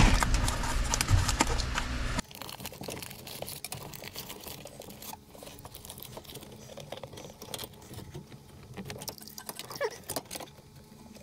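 Foil-faced Kilmat butyl sound-deadening mat crinkling and crackling as it is pressed and smoothed up under a dashboard by hand, in many small irregular clicks and rustles. A steady low hum for the first two seconds cuts off abruptly.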